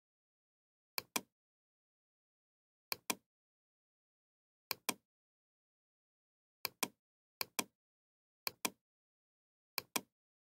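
Computer mouse clicking: seven quick double clicks, spread unevenly with dead silence in between.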